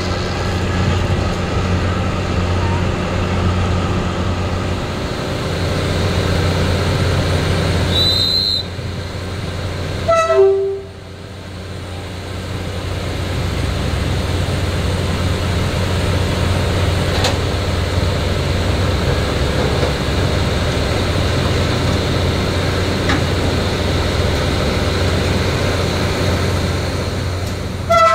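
Diesel locomotive idling with a steady low hum. A short horn sounds about ten seconds in and again right at the end.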